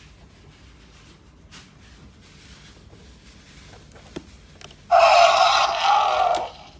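Mattel Jurassic World Dominion Extreme Damage Allosaurus toy playing its electronic roar through its small speaker, a loud burst of about a second and a half near the end, set off by a hand pressing the toy's body. Before it, faint handling clicks on the toy and packaging.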